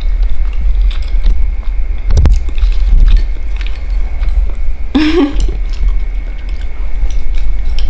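A woman eating cup yakisoba and rice with chopsticks: chewing and small clicks of chopsticks on the bowls, with a short voiced sound about five seconds in, over a steady low rumble.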